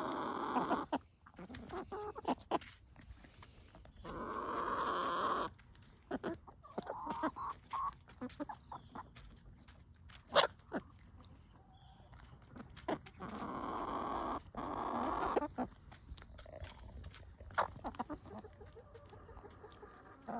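Hens pecking at a watermelon wedge, their beaks striking the flesh and rind in sharp, scattered taps, the loudest about halfway through. Three drawn-out hen calls come in between: at the start, about four seconds in, and about thirteen seconds in.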